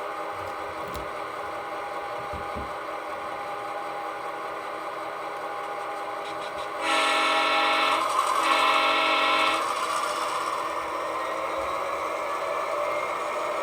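Sound decoders in HO-scale Athearn Genesis EMD diesel models (a GP38-2 and a GP40-2, Tsunami 2) playing a steady diesel engine sound as the locomotives run. About seven seconds in, one of them sounds a loud multi-chime horn in two blasts, about three seconds in all.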